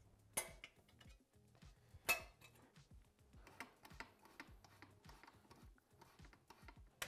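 Faint metallic clicks and clinks of hand tools and metal parts as a two-stroke expansion-chamber exhaust pipe is fitted back onto the cylinder. Two sharper clicks, about half a second and two seconds in, stand out among light scattered ticks.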